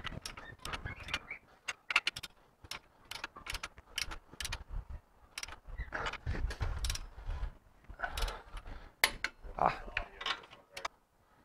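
Hand ratchet clicking in quick, uneven runs of strokes, tightening the U-bolt nuts that clamp a front leaf spring to the axle. It stops shortly before the end.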